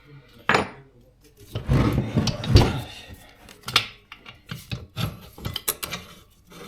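Hand tools and metal parts of a motorcycle's rear wheel and brake assembly being worked loose by hand: irregular knocks and clinks with rubbing and scraping, loudest about two to three seconds in.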